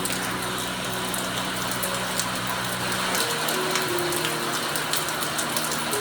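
Steady rain falling, a dense even hiss with many small drop ticks. Faint low held tones sit underneath and change pitch about halfway through.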